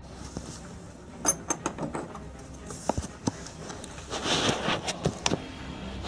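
Small metal and plastic clicks and rattles of a key being taken out of a wall-mounted Supra key lockbox, with a short rustle about four seconds in.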